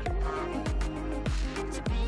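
Electronic background music with a steady beat of deep bass hits that slide down in pitch, about one every 0.6 seconds, under sustained synth notes.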